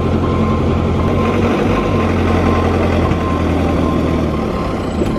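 Minibus engine idling steadily close by, an even low drone.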